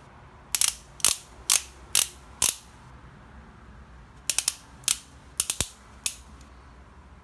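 Ratchet clicks from a torque wrench being worked on a motorcycle's front axle nut. First comes a run of five evenly spaced clicks, about two a second. After a pause there is a quicker, uneven cluster of clicks.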